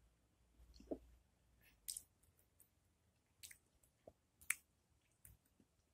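Faint, sparse wet mouth clicks and smacks of someone chewing a sour raw lemon slice with lips closed.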